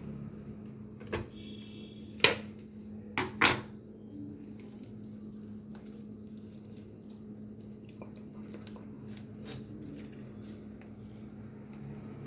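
Several sharp clinks of a kitchen utensil against a pot or dish, four in the first few seconds, over a steady low hum.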